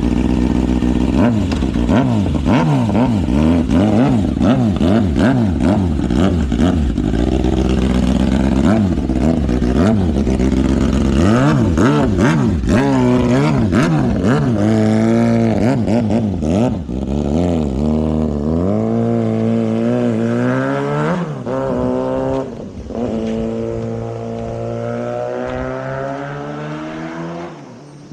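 Kawasaki Ninja ZX-6R inline-four engine with its catalytic converter deleted, revved hard in quick rises and falls, then pulling away with its pitch climbing and dropping back several times through the gears, fading near the end.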